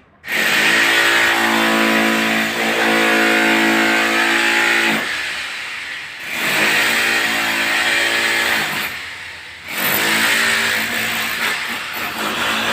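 Car engine revving hard as the car accelerates, in three long pushes with brief dips between them, like gear changes.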